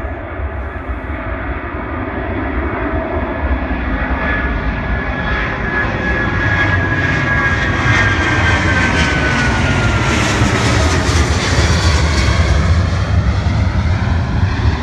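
Boeing 777-200ER twin-jet climbing out after takeoff and passing overhead: a low jet rumble that grows louder as it approaches and is loudest from about eight seconds in. A high engine whine drops in pitch as the airliner goes past overhead.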